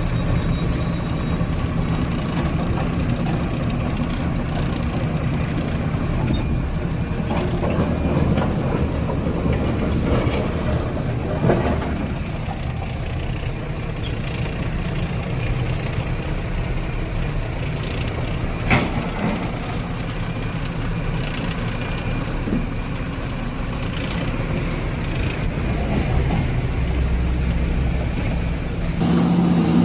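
JCB 3DX backhoe loader's diesel engine running steadily, with a couple of sharp clicks, and the engine getting louder just before the end.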